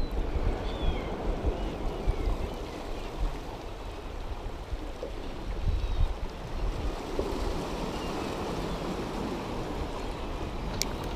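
Sea surf washing steadily, with gusts of wind rumbling on the microphone. Faint high chirps come now and then, and a single sharp click near the end.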